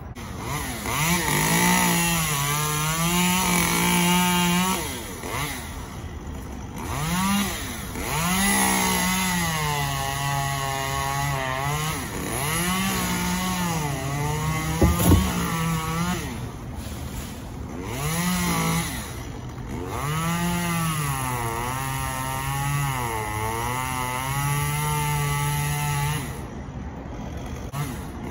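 A chainsaw cutting palm fronds at the crown of a palm, its engine revving up and dropping back over and over as each cut is made. There is a single sharp knock about halfway through.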